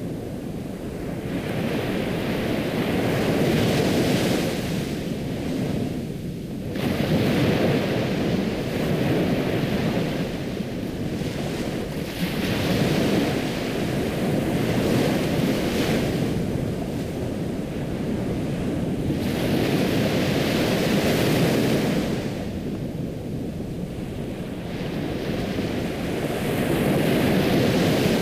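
Ocean surf: waves breaking and washing back, the rush of water swelling and falling away every four seconds or so.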